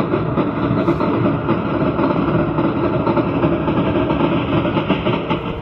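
A Casio electronic keyboard's built-in train sound effect: the steady rhythmic clatter of a running train, played from the keyboard's speaker.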